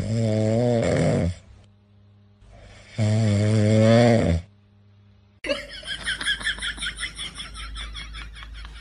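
A sleeping dog snoring loudly, two long drawn-out snores with a buzzing, pitched tone a second or so apart. About five seconds in, music with a steady beat starts.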